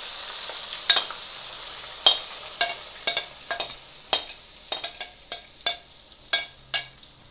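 Chopped onions sizzling in hot oil in a cooking pot, the hiss fading as they settle, then about a dozen sharp metallic taps of a spoon on cookware, each ringing briefly, as the last onions are knocked out of the bowl.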